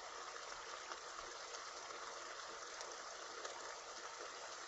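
Oily tomato stew simmering in a saucepan, bubbling and sizzling: a faint, steady hiss with small crackles.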